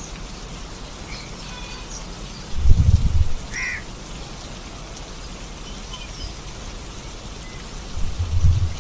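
Steady rain falling, with two short low rumbles, the louder about three seconds in and another near the end. A bird calls a few times over the rain, once loudly just after the first rumble.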